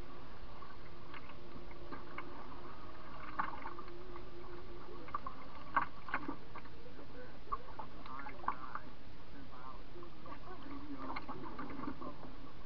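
Canoe drifting on calm river water: a steady hiss with faint water gurgles against the hull and a few light knocks and ticks, the loudest about six seconds in.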